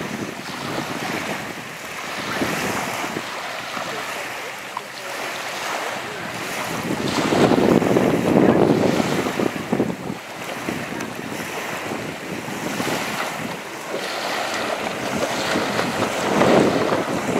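Strong gusts of wind buffeting the camera microphone over choppy water, surging loudest about halfway through and again near the end. A jet ski's engine runs faintly in the distance beneath the wind.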